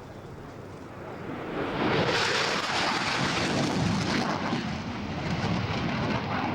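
F-16 fighter jet passing: a broad rushing jet noise that builds over about a second and a half and stays loud, easing slightly near the end.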